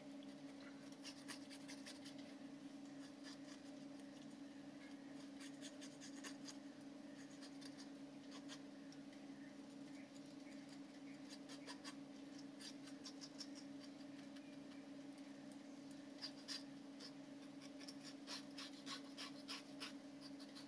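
Faint scraping and small clicks of a knife blade worked over the skin of a silver pomfret, over a low steady hum.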